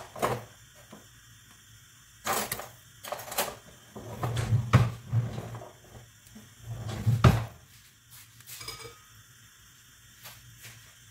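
Pans, a cup and cutlery being handled and set down in a kitchen: scattered knocks and clinks, growing sparse over the last few seconds.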